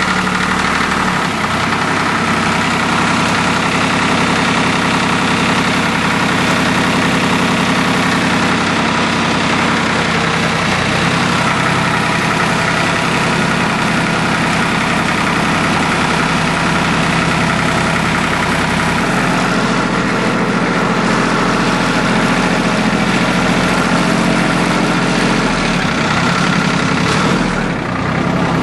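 Small 18-horsepower Yanmar diesel tractor engine running steadily, heard close up from the driver's seat as the tractor is driven. Its low end changes about two-thirds of the way through.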